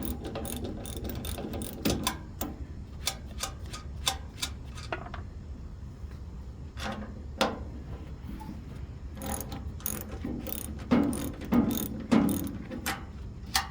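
Hand ratchet wrench clicking in short, irregular runs as bolts are backed out of a tube heater, with metal clinks and a few louder knocks near the end.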